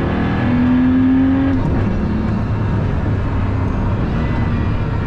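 Pagani Huayra Roadster BC's twin-turbo V12 pulling hard: its pitch climbs, then drops at an upshift about one and a half seconds in, and the engine then runs on more evenly over road and wind noise.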